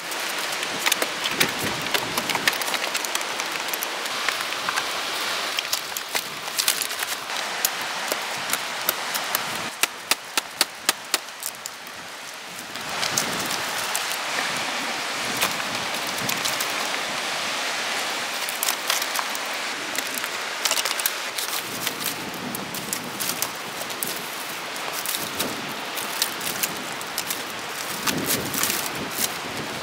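Dry branches and brushwood rustling and crackling, with many small twig snaps, as they are handled and piled onto a log shelter.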